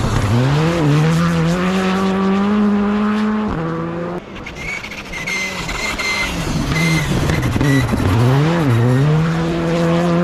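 Rally car engines at full throttle, one after another. The first engine note climbs and holds at high revs. After a break, a second car's note dips and rises through quick gear changes before holding high again.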